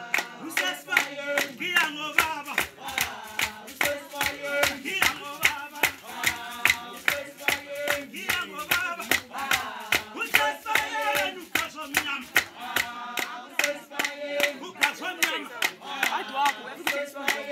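A group of voices singing together, kept in time by steady, quick hand clapping.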